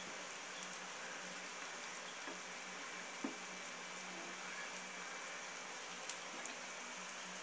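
Raw fish pieces being mixed by hand with spice powder on a steel plate: faint soft clicks and handling sounds over a steady low hum and hiss, with one sharper click about three seconds in.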